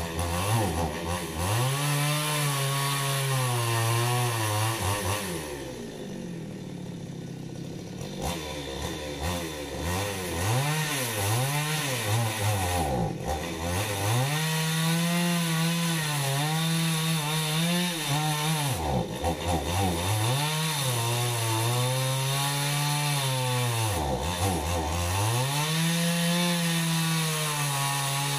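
Two-stroke chainsaw cutting through a tree trunk. The engine speed sags each time the chain bites into the wood and climbs again as it frees. About six seconds in it eases off to a lower speed for a couple of seconds, then revs back up.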